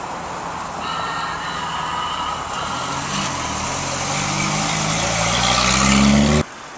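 Jeep Wrangler engine pulling away, its note rising in pitch and getting louder as it accelerates, over a steady hiss of street noise; the sound cuts off suddenly near the end.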